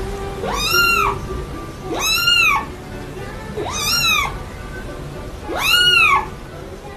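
Young kitten meowing four times, about every one and a half to two seconds; each meow rises and falls in pitch.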